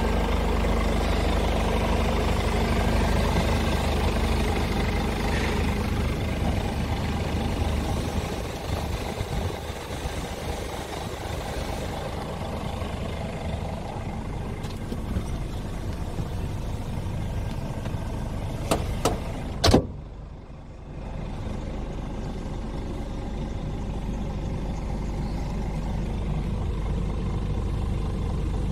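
Scania R410 truck's 13-litre inline-six diesel idling steadily. A few sharp clicks come just before 20 s in, and the sound drops briefly after the loudest one.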